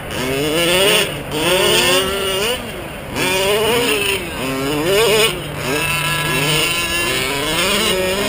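Small two-stroke engines of 1/5-scale gas RC cars, among them a Losi 5ive-T with a Zenoah 29.5 cc motor and Bartolone exhaust, revving up and falling back again and again with the throttle, several engines at once.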